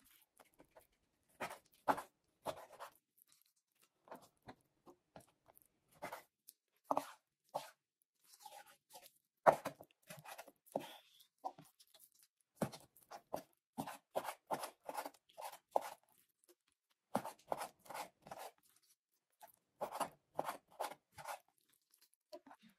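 Kitchen knife cutting raw chicken breasts into pieces on a wooden cutting board: sharp knocks of the blade on the board, irregular at times and in runs of quick, even chops at others.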